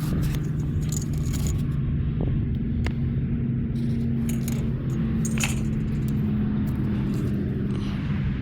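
An engine running steadily with a low hum, with scattered light clicks and metallic jingles of small objects being handled.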